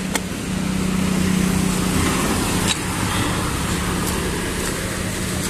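Road traffic: a steady engine hum from nearby vehicles over a continuous wash of road noise, with a couple of light clicks.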